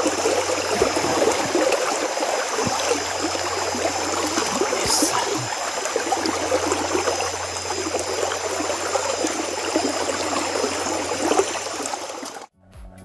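Steady rushing and trickling of a shallow river's current, which cuts off suddenly near the end.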